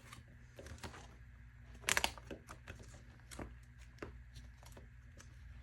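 Photocards and plastic binder pocket pages being handled: scattered light rustles and clicks, with a louder crinkling cluster about two seconds in.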